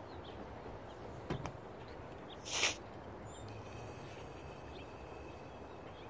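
A light click, then about a second later a short hiss of compressed air released from the fire-extinguisher tank of a homemade air rifle, after a try at firing gave no air.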